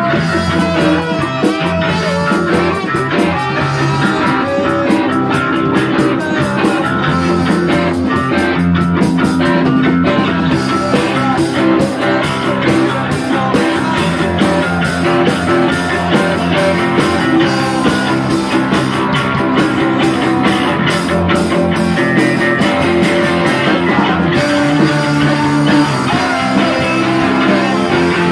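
Emo rock band playing live and loud, with electric guitars and drums.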